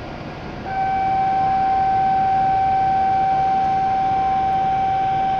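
Steady electronic departure signal on a Shinkansen platform: one unbroken high tone that starts about a second in and holds at a constant pitch and level, over the hum of the station.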